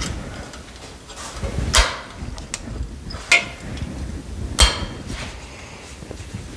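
Metal-on-metal clanks and knocks as steel stock clamped in locking pliers is worked in a sheet-metal slip roll: about four sharp knocks spread over several seconds.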